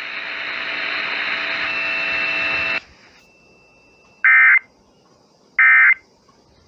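Radio static hiss that grows louder and cuts off about three seconds in. Then come two short, loud bursts of Emergency Alert System data tones about 1.4 seconds apart: the end-of-message code that closes the alert.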